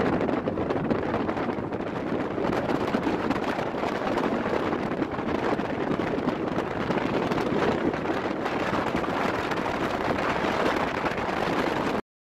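Wind rushing over the microphone with road and engine noise from a moving vehicle, a steady rumbling noise that cuts off abruptly near the end.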